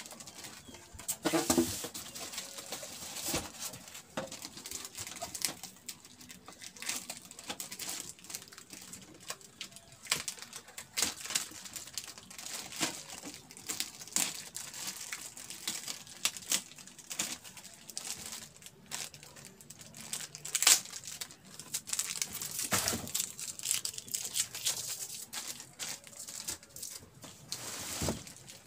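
Clear plastic packaging wrap crinkling and crackling as it is handled and cut open with scissors, with a few louder knocks in between.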